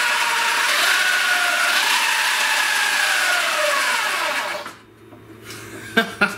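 The electric motor and chain drive of a 2009 Zero MX electric motorcycle running fast under throttle on a spin-up test of a new rear sprocket. A loud whine sounds over a rushing chain noise; its pitch climbs, then falls as the throttle is eased, and the sound drops away about four and a half seconds in.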